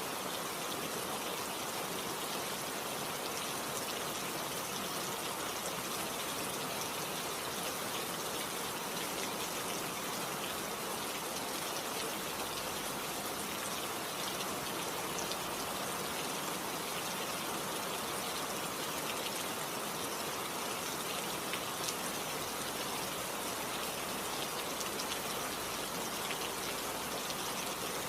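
Steady rain falling, a dense even hiss of drops with fine scattered ticks of individual drops striking a surface.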